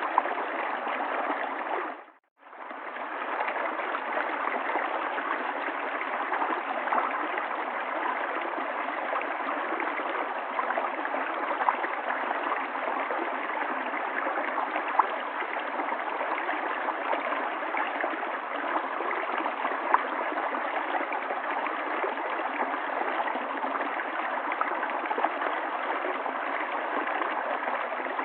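River water flowing and gurgling in a steady rush, briefly fading out and back in about two seconds in.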